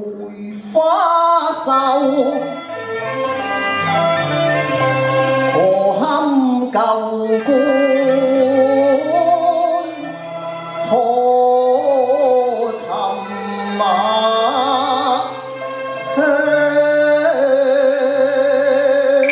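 A man singing a Cantonese opera song into a microphone, the held notes wavering with vibrato, over an instrumental accompaniment with a low bass line.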